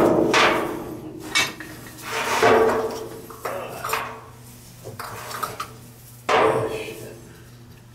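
Black steel pipe fittings clanking and clinking together as they are handled, a series of about six separate knocks that each ring briefly; the loudest come at the start and about six seconds in.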